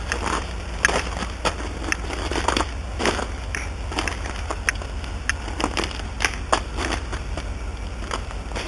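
Footsteps crunching over ice-glazed ground strewn with fallen branches, with irregular sharp crunches and cracks, roughly one or two a second, as ice crust and twigs break underfoot. A steady low rumble runs underneath.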